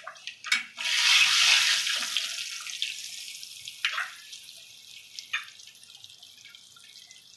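Spices sizzling in hot oil in a kadhai: the hiss rises sharply about a second in and fades slowly away, with a few taps and scrapes of the spatula against the pan.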